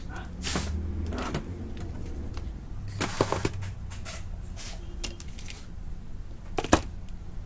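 Plastic and metal parts of a disassembled Brother DCP-T710W inkjet printer being handled and set down: scattered clicks and knocks, a quick cluster about three seconds in and the loudest knock near the end, over a low steady hum.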